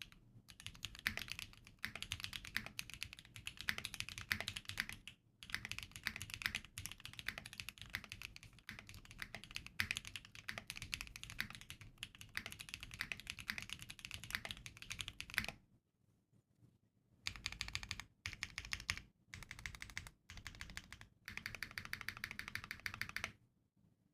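Mechanical keyboard with Huano Populus tactile switches being typed on: fast runs of key clicks, with a break of about a second and a half a little past the middle, then several short bursts and a final steady run of typing.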